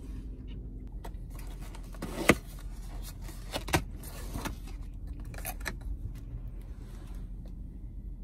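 Paperboard takeout box being opened by hand, its folded flaps clicking and rustling, with two sharper clicks a couple of seconds in and again near four seconds. A low steady hum of the car cabin runs underneath.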